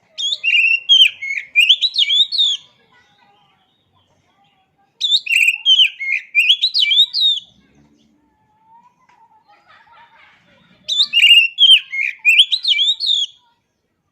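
Oriental magpie-robin singing loud, quick whistled phrases that glide up and down. It sings three phrases of about two and a half seconds each, with short pauses between them.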